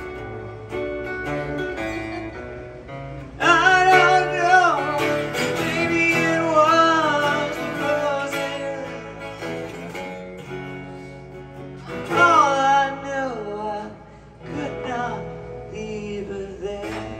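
Live solo acoustic guitar strummed under a sung vocal. The voice comes in about three seconds in for a long phrase, and sings again briefly around twelve seconds and near the end, with the guitar carrying on alone between.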